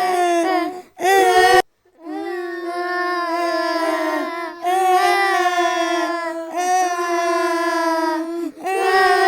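Small girls crying: long, drawn-out wails at a steady high pitch, one after another with short breaks for breath, one brief louder wail about a second in.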